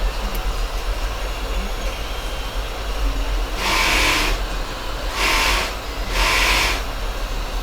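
Hot-air rework station blowing a steady hiss of hot air while it heats a phone's charging port for desoldering. About halfway through come three short, louder bursts of hiss, each under a second.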